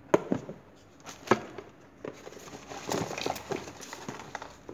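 Handling noise while unpacking a hard plastic tool case: two sharp plastic clacks, then plastic wrapping crinkling and rustling for the last couple of seconds.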